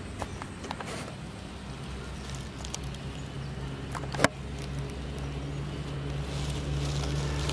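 Steady low drone of a distant engine that grows louder partway through, over light rustling and scattered small clicks from hands working in mud and leaves at the mouth of a hole, with one sharp click about four seconds in.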